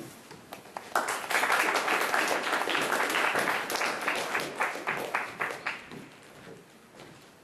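Audience applauding: the clapping starts sharply about a second in, holds for about five seconds and then dies away.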